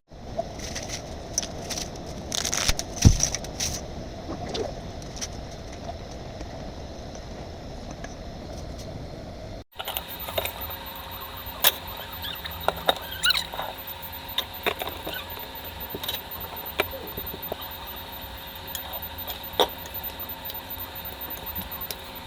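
Kitchen prep sounds: scattered clicks, clinks and light knocks of utensils and dishes over a steady background hum, with an abrupt edit cut about ten seconds in.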